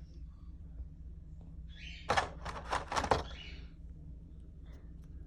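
A short cluster of sharp clicks and small knocks with some rustling, about two seconds in and lasting about a second: packaging and parts of a diecast model airliner being handled as it is unboxed.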